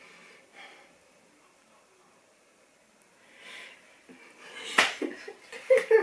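A woman breaking into laughter: quiet for the first three seconds, then a breath, then short bursts of laughing breath that grow louder over the last second and a half, the loudest a sharp burst about five seconds in.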